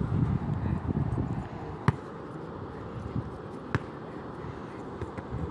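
Wind rumbling on the phone's microphone, easing after the first second or so, then two sharp thuds about two seconds apart: a ball being struck.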